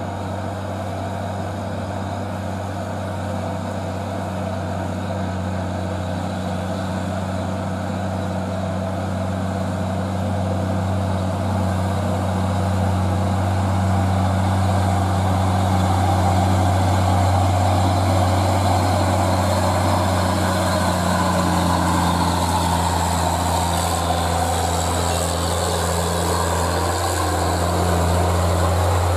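Diesel engine of a loaded Mitsubishi Fuso dump truck pulling steadily up a long steep climb, a steady low drone that grows louder as the truck draws near.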